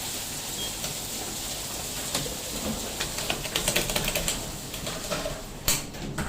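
Vintage Fujitec Royal Superdyne elevator car running with a steady hiss, then a quick run of clicks like typing around the middle and one sharper click near the end.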